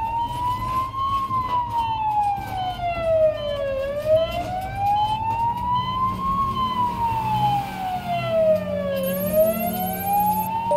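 Emergency vehicle siren wailing, its pitch gliding slowly up and down, two full rises and falls of about five seconds each, over a low steady rumble.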